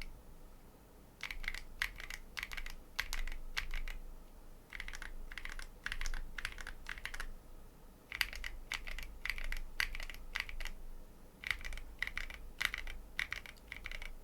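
Mechanical keyboard typing in runs of keystrokes with short pauses. The keyboard has lubed Tecsee Coral tactile switches in a Cannon Keys Bakeneko 60 with an FR4 plate, and tall SA-profile double-shot ABS keycaps.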